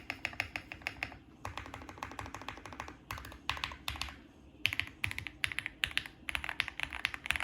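Typing on a QK65 custom mechanical keyboard with lubed JWK Alpaca linear switches, a POM plate and Cherry-profile PBT keycaps: fast runs of keystrokes broken by a few brief pauses.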